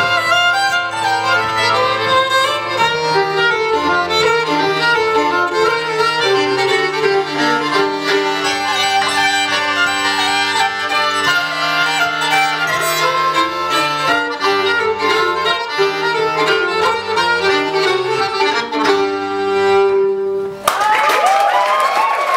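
Fiddle and button accordion playing a lively folk tune in G minor together, ending on a final note about 20 seconds in, followed at once by audience applause.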